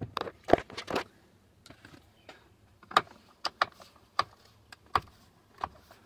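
Irregular sharp clicks and knocks, about eight of them, from a screwdriver and the plastic steering-column shroud as the cover screws are taken out and the shroud is worked loose.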